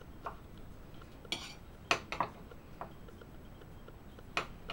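Large fixed-blade knife slicing radishes on a wooden cutting board: a handful of irregular sharp clicks as the blade meets the board, with a brief scrape about a second in.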